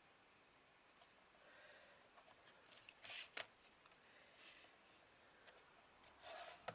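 Near silence with a few faint scratches and rustles, the clearest about three seconds in and again near the end: a guide line being marked along a ruler on a craft backboard.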